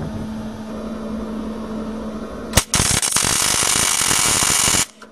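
Arc welder set to 130 amps, striking an arc with a sharp crack about two and a half seconds in. The arc then crackles loudly and steadily for about two seconds as a weld bead is run joining a CV axle's drive hub to its shaft, and cuts off suddenly. Before the weld there is a steady low hum.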